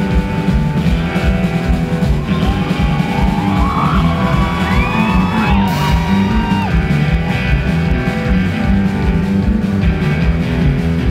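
Live band playing a country-rock song, led by guitar, over a steady low beat. About two to seven seconds in, a brief sliding, wavering high line rises above the band.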